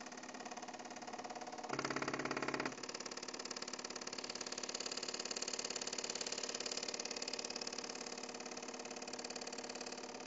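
MakerBot Cupcake CNC 3D printer laying down a raft: its axis stepper motors whine in several steady tones as the platform shuttles back and forth. The whine grows louder and deeper for about a second, near two seconds in.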